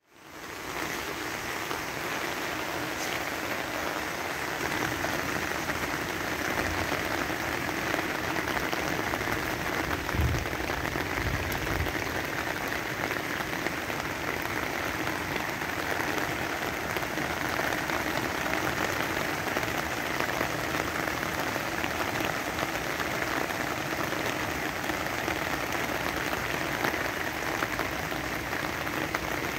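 Heavy rain pattering steadily on an umbrella overhead, a dense even hiss of drops, with a few low bumps about ten to twelve seconds in.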